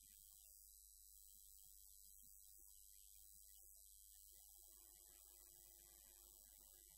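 Near silence: a low steady hum under faint hiss, with a faint pitched sound coming in about two-thirds of the way through.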